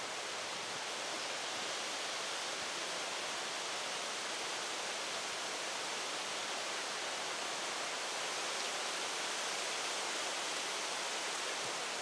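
Strong wind rushing steadily through the trees, swelling slightly.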